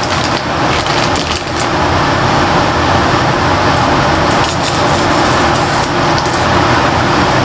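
A steady, loud rushing noise with a low hum, over which a Hershey's Kiss foil wrapper crinkles faintly now and then as it is unwrapped.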